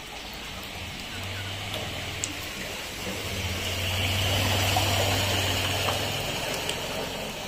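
Heavy rain falling on a flooded lane, with a motorbike engine running steadily from about a second in, growing louder toward the middle and stopping about six seconds in.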